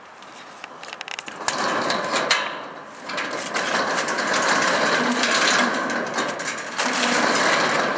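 Corrugated steel roll-up storage door rattling as its latch is worked and the door is shaken and pulled: a few light clicks first, then from about a second and a half in a loud, steady rattle that eases briefly near three seconds.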